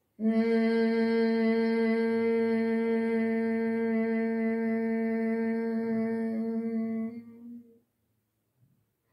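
A woman's Bhramari (humming bee breath) hum: one long, steady hum on a single pitch, held on the out-breath for about seven seconds and trailing off near the end.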